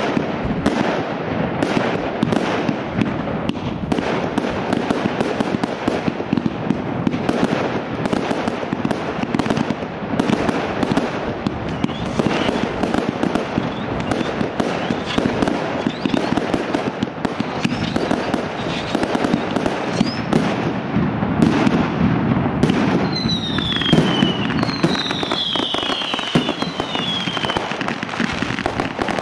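Professional fireworks display: a rapid, continuous barrage of launches and bursting shells, with several falling whistles near the end.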